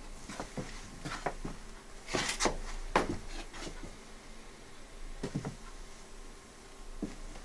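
Scattered light knocks and clicks, with a brief rustle about two seconds in and a sharper click about three seconds in, over a faint steady low hum: handling and movement noise in a small room.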